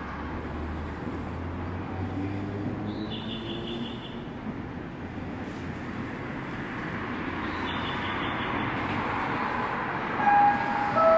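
Linimo low-speed maglev train approaching along its elevated guideway, its running noise slowly growing louder as it nears. About ten seconds in come two short, loud, steady tones, the second lower than the first.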